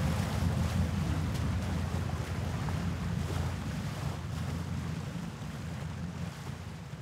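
A steady, low rushing rumble with hiss above it and no clear tones, fading slowly over the last couple of seconds.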